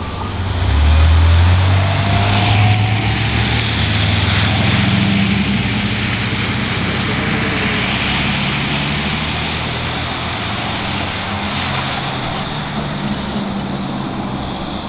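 A motor vehicle's engine rumbling close by, swelling about a second in and then slowly fading, over a steady hiss of tyres on the wet road.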